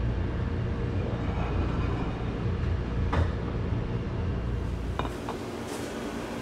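Steady low rumble of restaurant kitchen noise, with a single light knock about three seconds in. The rumble drops away about five seconds in, leaving a quieter hiss.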